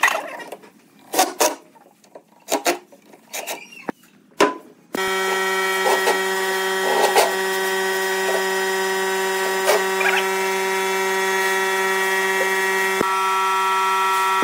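Cordless impact driver driving hinge screws into pine in short bursts. About five seconds in, a steady electric hum with many overtones starts abruptly and holds at one pitch, with a few light knocks over it.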